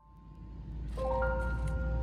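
Background music with several held tones coming in about a second in, over a steady low rumble that grows louder.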